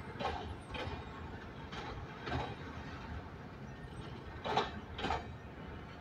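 Empty freight hopper cars rolling past over the rails, their wheels knocking in pairs about half a second apart, three pairs in all, the loudest pair near the end, over a low rolling rumble.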